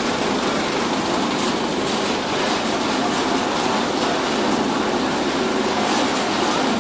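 Betel nut (sopari) cutting plant running: the cutting machine, bucket elevator and vibrating grading screen together make a steady, dense mechanical rattle.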